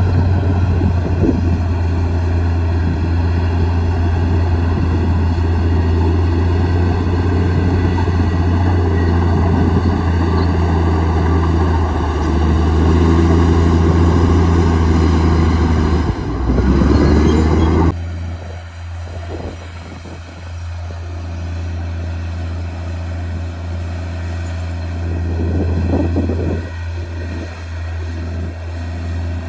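Komatsu D58E bulldozer's diesel engine working under load, steady and loud, rising in pitch briefly about two-thirds of the way in, then dropping abruptly to a quieter running level.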